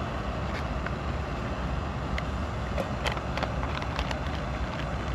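Steady low rumble of distant highway traffic, with a few light crinkles and clicks from a foil freeze-dried meal pouch being handled and sealed.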